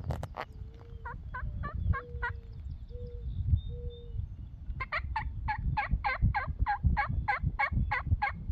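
Turkey yelping: two runs of short two-tone notes, each breaking from high to low, about four a second, the longer run in the second half. A low rumble runs underneath.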